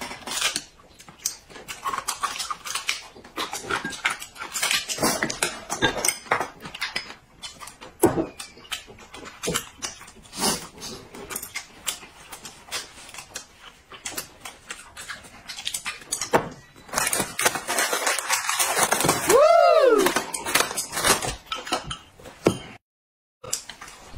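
Chewing and chopsticks clicking and tapping against plates and bowls at a meal. About three-quarters of the way through comes a whimpering cry that rises and falls, and the sound cuts out briefly near the end.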